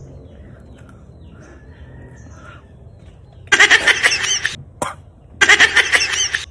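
Two loud, harsh honking cries, each about a second long and about a second apart, after a quiet opening.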